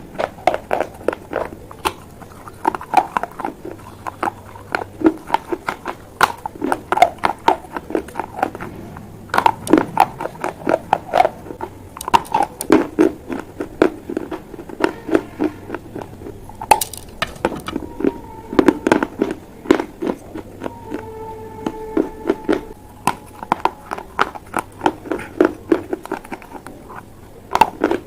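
Close-miked crunching of baked clay pot pieces being bitten and chewed: clusters of sharp, rapid cracks with short pauses between bites.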